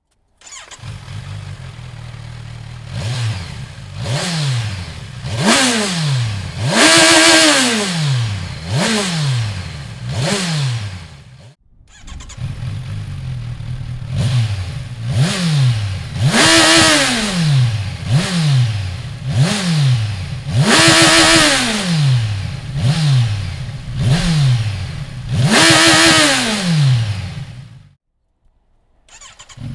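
Kawasaki Versys 1000 inline-four engine through a Dominator aftermarket exhaust, idling and revved in repeated quick throttle blips, each rising and falling in pitch, a few of them revved higher. The sound cuts off abruptly near the middle, starts again at once, and cuts off again near the end.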